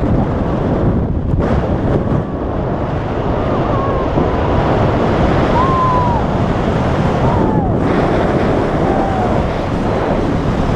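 Freefall wind rushing over the camera microphone in a tandem skydive: a loud, steady roar of buffeting air, with a few faint wavering whistles through it.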